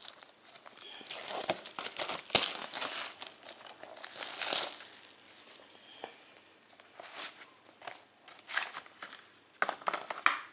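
Plastic wrapping on a Blu-ray case being torn open and crinkled by hand, in irregular rustling bursts, loudest from about two to four and a half seconds in.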